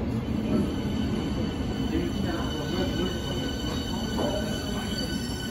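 Berlin S-Bahn class 483/484 electric multiple unit moving slowly along the platform: a steady low rumble of wheels on track with a few faint, steady high tones over it.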